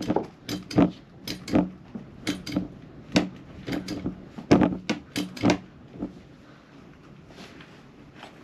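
Sharp clicks and knocks as locking pliers clamped on a copper nail are worked with short pumping strokes to draw it out of a wooden boat frame. There are about a dozen irregular knocks, which stop about five and a half seconds in.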